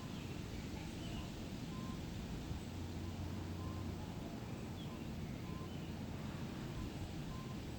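Forest ambience: faint, scattered bird chirps and a soft short note repeating every second or two, over a steady low rumble.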